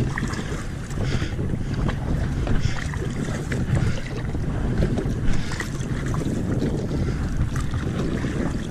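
Wind buffeting the microphone, with short, irregular splashes of water every second or two.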